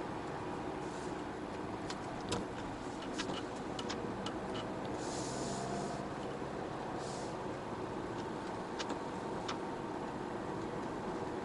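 Steady low running and road noise heard inside a slowly moving car on a wet road, with scattered light ticks and two short hissing swishes, one about five seconds in and another about seven seconds in.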